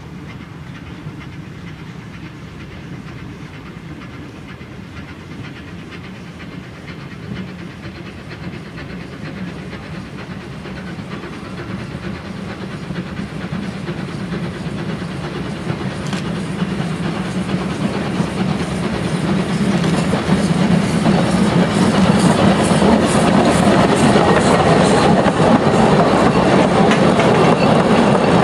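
Narrow-gauge steam locomotive hauling a short train of coaches, approaching and passing close. Its sound grows steadily louder as it nears, with a rhythm of repeated beats coming through clearly from about halfway, and is loudest as the coaches go by near the end.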